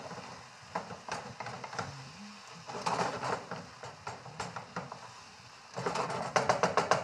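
Ground beef and turkey sizzling in a stainless steel skillet while a wooden spatula stirs and scrapes it against the pan, with a quick run of scrapes near the end.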